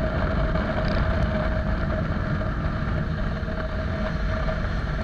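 Motorcycle running on the move with heavy wind noise on the microphone: a steady low rumble with a constant hum over it.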